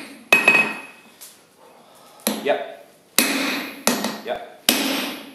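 Hand hammer and striker's sledgehammer blows on red-hot steel over an anvil, each with a short metallic ring, as a top fuller's end is drawn out. One or two blows come near the start, then after a pause of about two seconds four more follow about three-quarters of a second apart.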